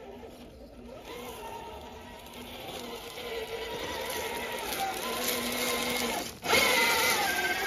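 Electric motor and geared drivetrain of a 1/10-scale RC rock crawler whining steadily as it crawls slowly over rock. The whine grows louder as the truck comes close, breaks off briefly about six seconds in, then returns louder and higher.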